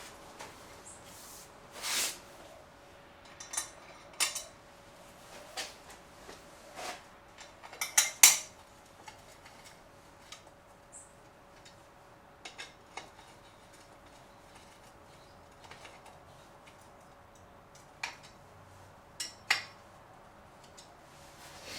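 Scattered metallic clinks and knocks of steel parts and hand tools being handled, the sharpest a close pair about eight seconds in. A faint steady hum runs underneath.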